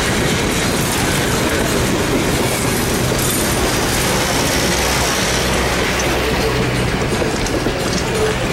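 Railroad passenger coaches rolling past, loud and steady, their wheels clicking over the rail joints.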